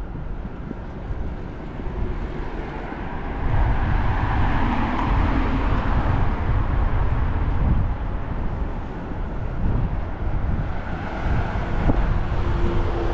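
City street traffic: a steady rumble of passing vehicles, swelling louder as a vehicle goes by between about four and seven seconds in.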